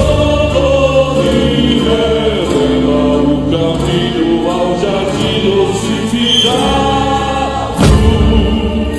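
A group of voices singing together in held, sliding notes with the drums dropped out; the percussion comes back in near the end.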